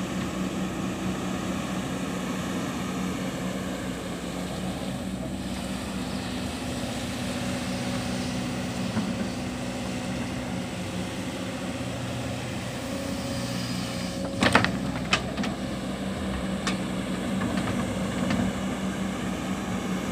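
Kobelco hydraulic excavator's diesel engine running steadily as the machine digs mud. A few sharp knocks come about three-quarters of the way through.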